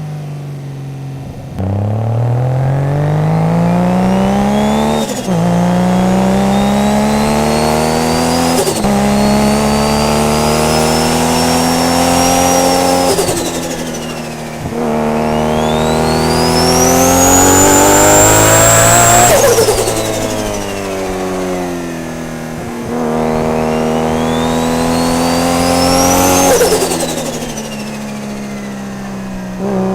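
Heavily modified Nissan R32 GT-R's twin-cam straight-six pulling hard under full throttle. It shifts up twice in quick succession, lifts off, then makes two more long pulls, each lift marked by a sharp drop in revs. A high whine climbs with the revs on each pull and fades when the throttle closes.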